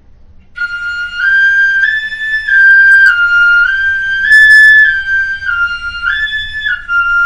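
Wooden pífano (transverse fife in C) playing a stepwise three-note pattern in the high octave, F, G and A, going up and back down again and again (1-2-3-2-1), each note held about half a second. The playing starts about half a second in and ends on a long held note.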